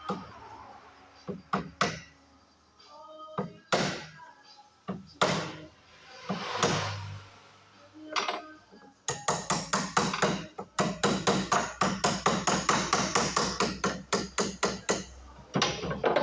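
Hammer strikes: a few separate blows, then about nine seconds in a fast, even run of blows, about five a second, lasting some six seconds.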